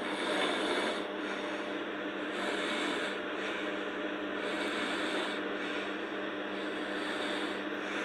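A sleeping girl snoring, noisy breaths swelling and fading about every two seconds over a steady hum.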